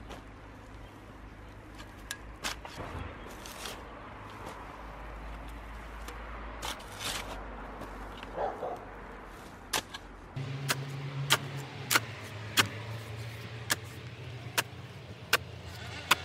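Steel shovel blade digging into soil: scattered scrapes and crunches. Then, about two-thirds through, a steady run of sharp clinks, roughly one and a half a second, as the blade chops into stony ground.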